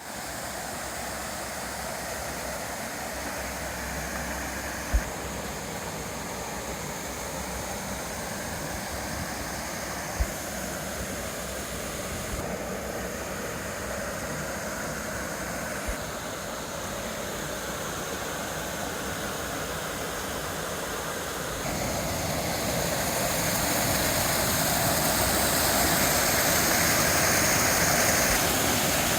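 Steady rush of water pouring down a waterfall, stepping up louder about three-quarters of the way through. Three short sharp clicks sound in the first half.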